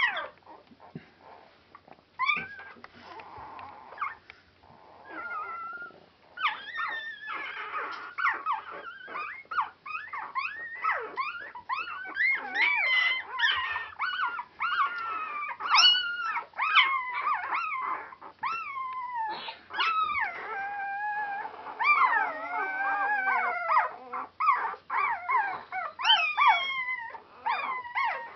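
Four-day-old Border Collie puppies squealing and whining, many short high-pitched cries that rise and fall in pitch. Sparse at first, then several pups cry over one another almost without a break from about six seconds in.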